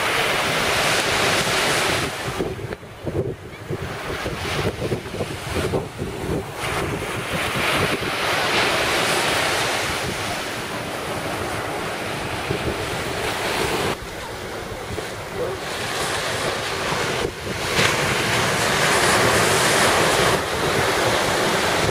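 Surf breaking and washing up a sandy beach, a steady rushing that swells and eases, with wind buffeting the microphone.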